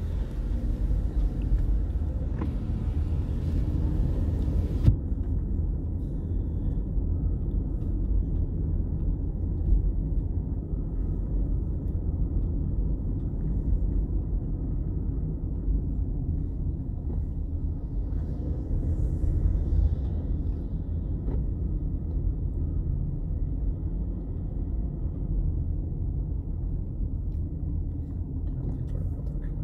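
Car cabin noise while driving: the low, steady rumble of the engine and tyres heard from inside the car, with one sharp knock about four and a half seconds in.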